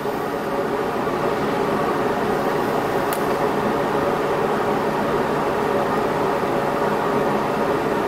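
Steady mechanical whirring hum, with one faint click about three seconds in.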